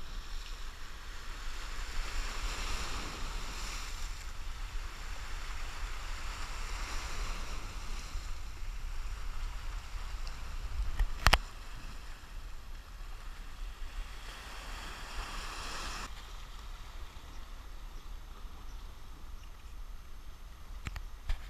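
Small sea waves washing over shoreline rocks, swelling and easing every few seconds, with a steady low rumble of wind on the microphone. A single sharp click about eleven seconds in.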